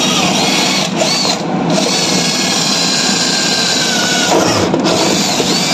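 Power drill running at the screws of caster wheels on a plywood board. It runs steadily with a high whine and eases off briefly about a second in and again near the end.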